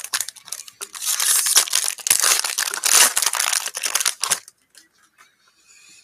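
Foil trading-card pack wrapper crinkling and tearing as it is torn open by hand. The crinkling starts about a second in, runs for about three and a half seconds, then stops, leaving only faint rustles of the cards being handled.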